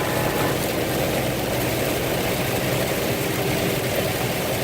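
Semi-truck diesel engine running at a steady idle, heard from inside the cab over a constant hiss.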